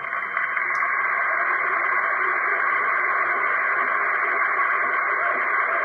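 Large crowd applauding and cheering, a steady rush of sound with no break, heard through an old, thin-sounding archival recording.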